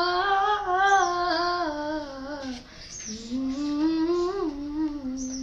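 A young boy humming a song melody unaccompanied. There are two long wordless phrases, with a short breath a little past halfway.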